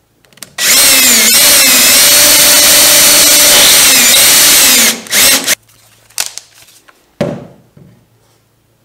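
Power drill with a half-inch all-purpose twist bit boring through a gel-coated canoe hull: the motor runs hard for about four seconds, its pitch sagging and recovering under load. Then come a few short trigger bursts, and a little after seven seconds one brief spin that falls in pitch.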